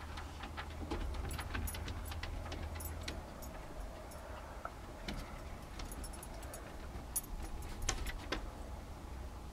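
Irregular light clicks and rattles of a handheld video camera being handled and re-aimed, over a steady low hum. The clicks are loudest about one second in and again near the end.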